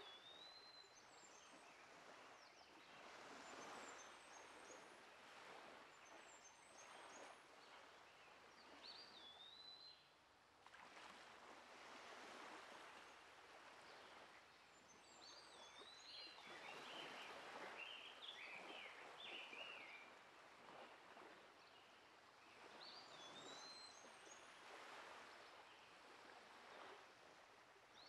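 Faint outdoor ambience: birds calling, with a short whistled phrase repeated about every eight seconds, higher chirps, and a longer warbling song in the middle, over a soft, shifting rushing noise.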